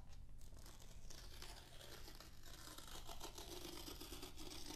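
Paper tear strip being pulled off along the edge of a cardboard laptop box: a steady, crackly tearing of paper and card lasting about four seconds.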